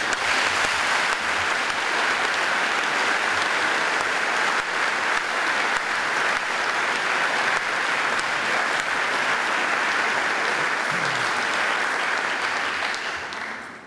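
Audience applauding steadily, a dense clapping that starts at once and dies away near the end.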